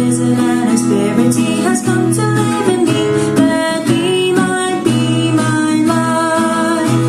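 Music led by plucked acoustic guitar over steady sustained chords, with no break.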